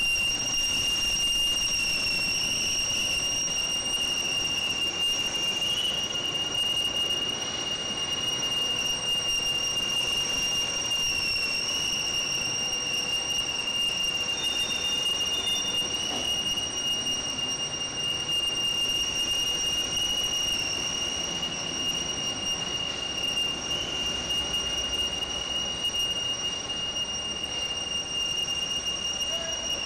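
Running sugarcane-crushing and jaggery-plant machinery: a steady high-pitched whine over a continuous mechanical din, unchanging throughout.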